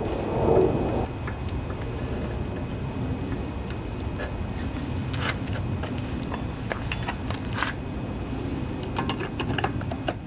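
Scattered light clicks and clinks of an air filter housing and screwdriver being handled and fitted onto a small engine's carburetor, over a steady low background hum, with a brief louder rushing noise at the very start.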